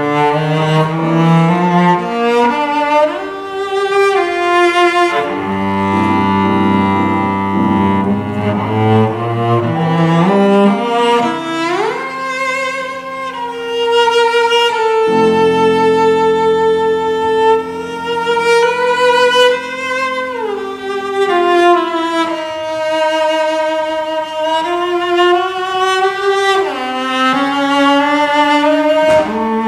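Cello playing a slow melody of long bowed notes with vibrato, sliding up or down between some notes, over a soft piano accompaniment.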